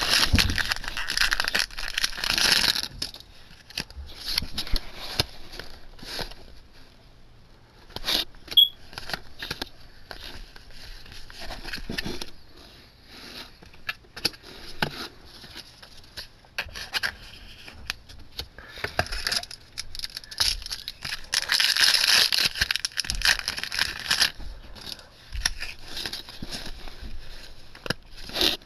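Foil booster-pack wrappers crinkling and trading cards being handled: rustling and sliding with many small clicks and flicks, in two louder stretches at the start and about two-thirds of the way in.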